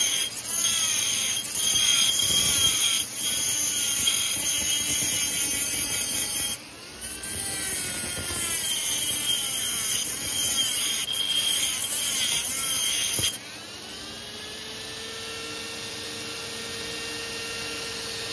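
Handheld rotary tool with a small abrasive cut-off wheel grinding down a weld on a metal angle guide, a steady hissing grind with a brief break about six and a half seconds in. At about thirteen seconds the wheel comes off the metal and the tool runs free, quieter, its whine rising a little and then holding steady.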